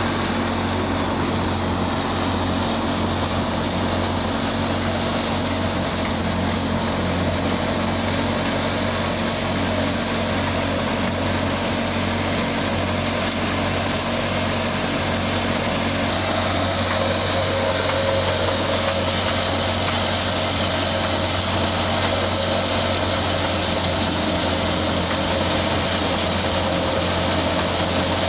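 Al-Ghazi Dabang 85 tractor running under steady load to drive a chickpea thresher, with the thresher's drum and blower turning: a continuous, even machine drone with a low hum. A higher steady whine joins a little past halfway.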